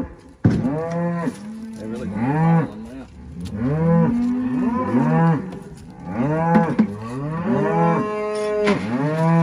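Several beef cows mooing over and over, their long arching calls overlapping one another almost without a break, as they call for the grain being carried toward the feeder.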